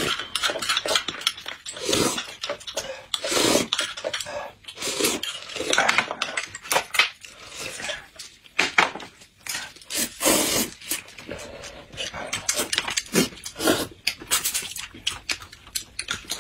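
Close-miked eating sounds: slurping and chewing, with spoons and chopsticks clicking against cups, in a dense run of short bursts.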